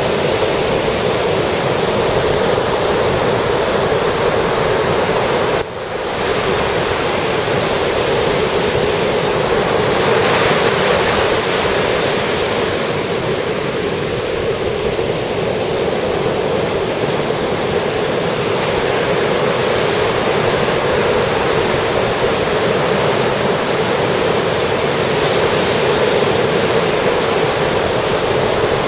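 Ocean surf washing continuously onto a beach, a steady rush of breaking waves. The sound drops out briefly a little under six seconds in, and about ten seconds in a wave breaks and the hiss swells.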